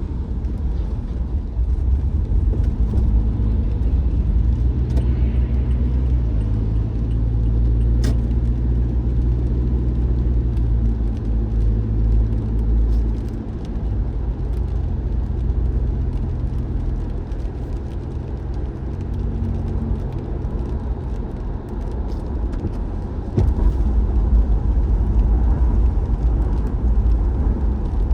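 A car driving: a steady low rumble of engine and road noise, with a hum that shifts pitch a few times. A sharp click about 8 seconds in, and the rumble grows louder near the end.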